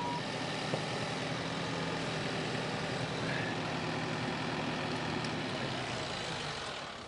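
Kubota M5-091 tractor's diesel engine idling steadily, then shutting off and winding down near the end.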